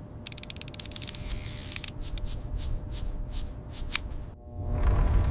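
A rapid, irregular run of dry clicks and rattles, like cards being shuffled, lasting about four seconds. Near the end a low, swelling whoosh with sustained tones comes in, a suspense sound-effect sting.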